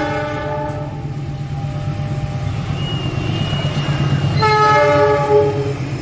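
GE CC206 diesel-electric locomotive sounding its multi-tone horn twice as it passes hauling a passenger train. The first blast ends about a second in; a second, louder blast starts about four and a half seconds in and lasts over a second. A steady low drone of the engine and train runs underneath.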